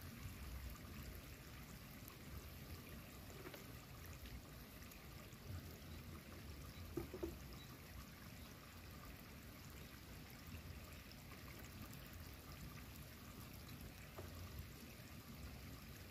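Faint steady hiss of small fish grilling on bamboo skewers over smouldering wood embers, with a low uneven rumble beneath. There is a brief knock about seven seconds in.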